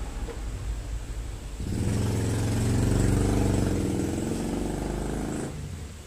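A motor vehicle's engine passing by, swelling in under two seconds in and fading out near the end.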